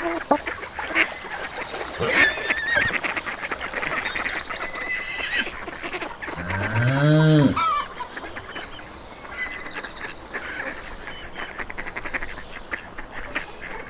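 Farmyard morning ambience: geese honking amid the chatter of other fowl, with one low drawn-out call that rises and then falls in pitch for over a second, about halfway through.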